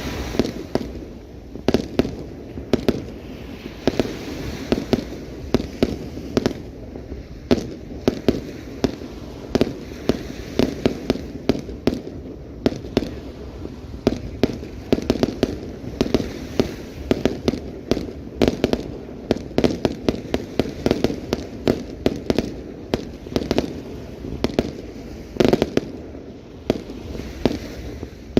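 Fireworks display: a rapid, irregular barrage of bangs and pops, several a second, with a heavier cluster of bursts near the end.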